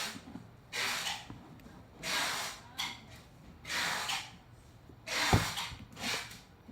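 Packaging being handled: five short rustling swishes, with a sharp knock about five seconds in.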